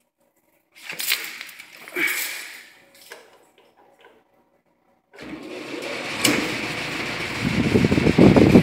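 A few seconds of handling clatter, then about five seconds in a belt-driven whole-house fan starts on its low speed and spins up, its rushing air growing louder, with a low buffeting flutter near the end.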